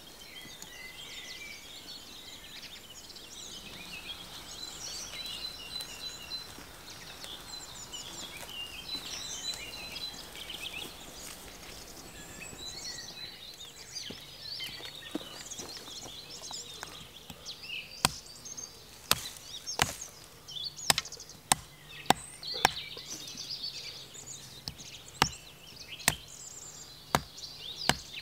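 Birds chirping and singing over a steady outdoor ambience. About two-thirds of the way in, a heavy hand-held blade starts chopping a stick against a wooden tree stump: a dozen or so sharp knocks at uneven gaps of about a second.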